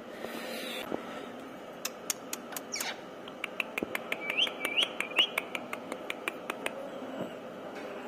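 Indian ringneck parakeet making a run of sharp clicks, about three or four a second, with a quick falling squeak near three seconds in and a few short chirps in the middle.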